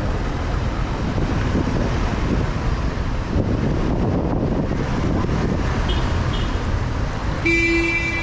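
City street traffic: a steady wash of passing vehicles. About seven and a half seconds in, a vehicle horn sounds one long, steady note.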